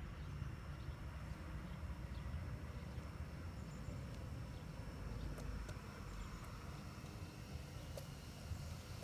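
Analog G-scale model diesel locomotive set running on garden-railway track: a faint steady high motor whine and a few light clicks from the wheels, under a heavy rumble of wind on the microphone.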